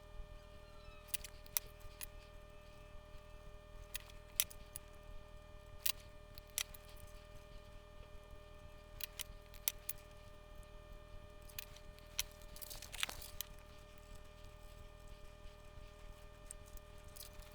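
Scattered sharp clicks and taps of tools on a receiver's circuit board while its old power switch is desoldered, over a faint steady electrical hum.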